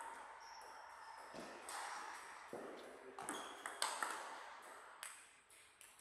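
Table tennis rally: the ball clicks sharply off the rackets and the table, with a hit every half second to a second.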